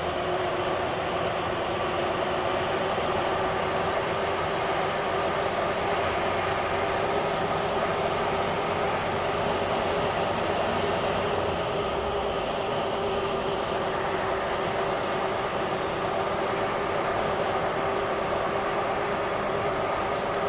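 Steady cabin noise of a vehicle driving at highway speed: engine hum with tyre and wind noise, unchanging throughout.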